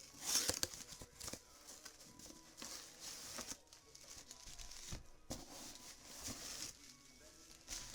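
A cardboard shipping box being opened by hand: packing tape tearing and packing material crinkling in irregular bursts, with scattered clicks and knocks.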